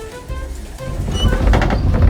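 Cartoon background music, with a noisy sound effect that swells up and is loudest near the end.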